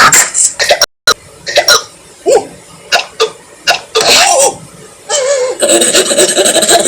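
A voice making a string of short, separate throaty noises, like coughs or hiccups, after a brief cut to silence. From about four seconds in it turns into longer vocal sounds that rise and fall in pitch.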